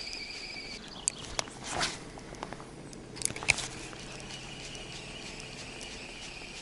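Insects chirring steadily in summer heat, a constant high buzz. It breaks off for a couple of seconds, during which a few sharp clicks and one short swish are heard.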